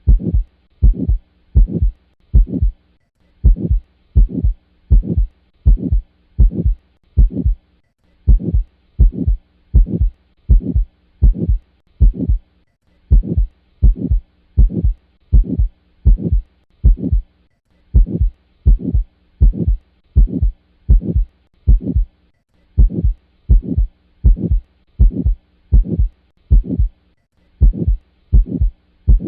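Recorded heart sounds with a systolic ejection murmur of valve stenosis: loud low beats about twice a second, with a short break about every five seconds.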